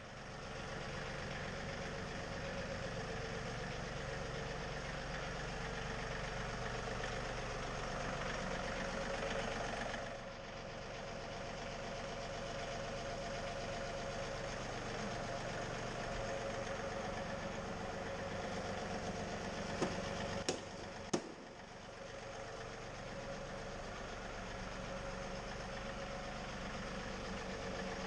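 Tractor engine running steadily, with a drop in level about ten seconds in and two sharp clicks about two-thirds of the way through.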